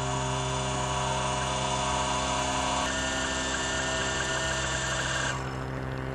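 Vixen SXW Sphinx equatorial mount's drive motors slewing the telescope to a go-to target, a steady electric whine made of several tones. The whine's pitch pattern shifts about three seconds in, and its upper part drops away a little after five seconds as the slew changes.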